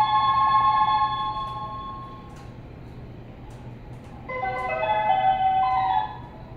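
Electronic station platform melody over the platform speakers, of the kind played while a train waits with its doors open before departure. It is a short tune of stepped notes that fades out about two seconds in, with a second phrase starting about four seconds in and stopping at six. A steady low hum runs underneath.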